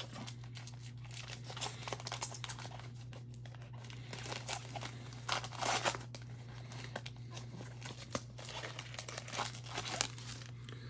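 Trading-card pack being torn open and its foil wrapper crinkled, with cards rustling and sliding as they are handled; the loudest tearing and crinkling comes about five to six seconds in.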